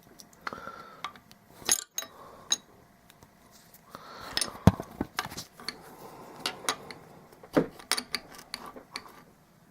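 Scattered metallic clinks and knocks of hand tools on a Corvair differential's parts as a stiff threaded fitting is worked loose, with a sharper ringing knock near the middle.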